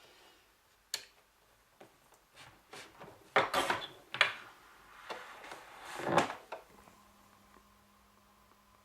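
A series of clicks, knocks and short rustles from objects being handled, loudest a little past the middle, after which a faint steady hum sets in.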